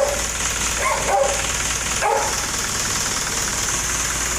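A dog barks twice, about one and two seconds in, over a steady background hum and hiss.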